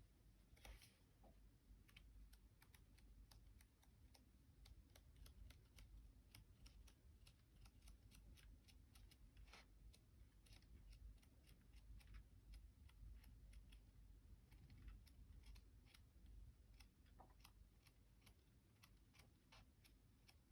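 Paper pages of a manga volume being flipped in quick succession: a faint, steady run of short page flicks, several a second.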